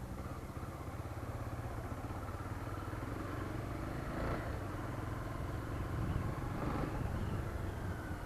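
Honda CB300's single-cylinder engine running steadily as the motorcycle rides along, heard from on the bike, with brief swells of noise about four seconds in and again near seven seconds.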